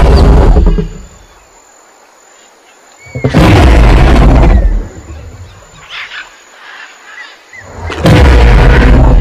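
Recorded dinosaur roars played over loudspeakers for an animatronic T. rex: a loud, deep roar dying away about a second in, a second from about three to five seconds, and a third starting near the end. Faint bird-like chirps sound in the gaps between roars.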